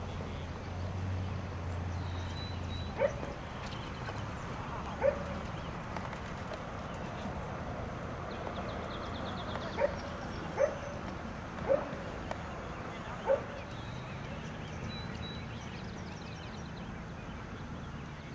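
A dog barking: six short single barks, two a couple of seconds apart and then four more close together a few seconds later, over steady outdoor background noise.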